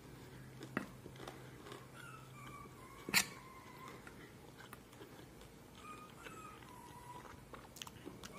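A sleeping, dreaming dog faintly whimpering: a series of thin, high whines that glide up and down. One sharp clink of a spoon on the aluminium bowl comes about three seconds in.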